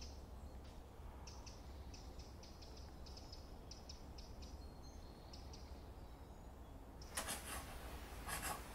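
Faint woodland ambience: quick, high bird chirps and twitters over a low hum, then two short rustling swishes near the end.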